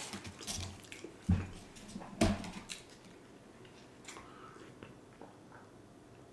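Close-miked eating sounds: chewing and wet lip smacks with two louder sharp smacks in the first seconds, then quieter sipping and swallowing from a cup.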